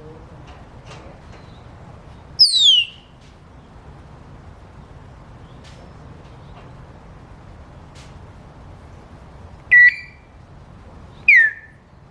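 African grey parrot giving three loud, short whistles: a quick downward-sliding whistle, then after a long pause a brief steady whistle and another falling one, imitating bird calls.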